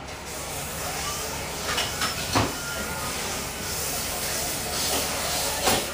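Levers of a mechanical signal-box lever frame clunking as they are thrown, about two and a half seconds in and again near the end, over a steady hiss.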